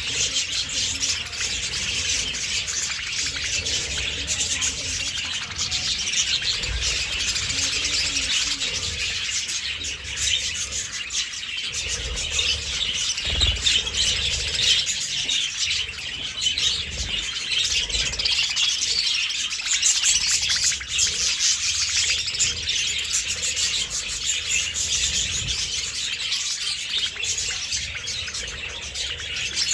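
A flock of budgerigars chattering and chirping continuously, many birds at once, with a few low bumps in the middle.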